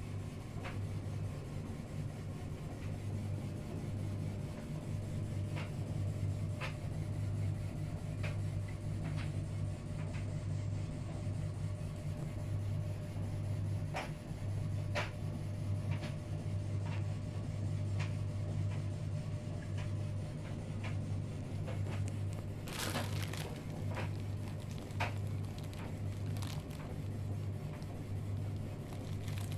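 A steady low hum throughout, with scattered light clicks and taps from handling things on the counter, and a short crinkle of a plastic bag about 23 seconds in.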